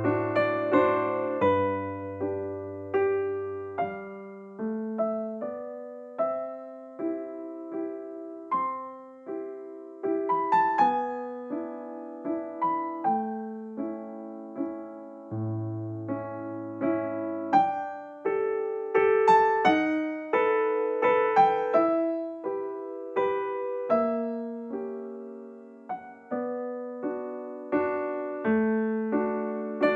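Background music: a gentle solo piano (electric piano) melody over chords, notes struck and left to fade.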